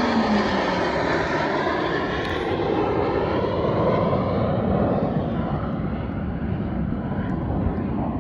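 A formation of jet aircraft passing overhead. A falling whine fades out in the first second, then the engine noise carries on as a steady roar that slowly thins out.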